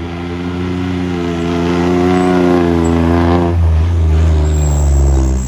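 Peugeot 208 rally car engine approaching and passing close at speed. The note grows louder, then drops in pitch about three and a half seconds in as the car goes by, leaving a heavy low rumble as it pulls away.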